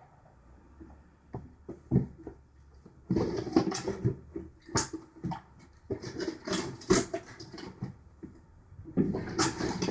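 Irregular clatter, knocks and rustling of small objects being handled on a work surface, in several busy stretches separated by sharp clicks.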